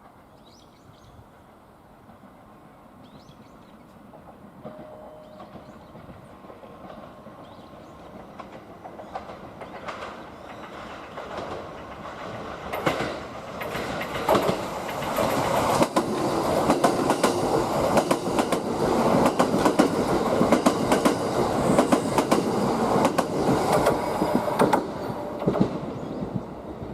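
Kintetsu limited express electric train approaching and running past, its wheels clattering over the rail joints. It grows louder from a few seconds in, is loudest through the second half, and eases off near the end.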